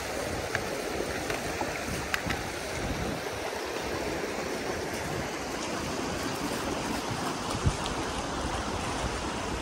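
Fast-flowing shallow river running over stones: a steady rushing hiss of water, with a couple of brief knocks.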